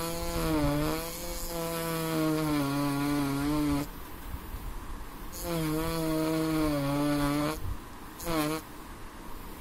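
An Engrave-It engraver pen buzzing as its vibrating tip scratches letters into black paper. The buzz comes in a run of about four seconds, a second run of about two seconds, and then a short burst, with breaks between them and the pitch wavering slightly.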